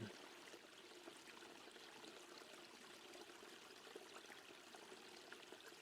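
Faint, steady running-water ambience, very low in level.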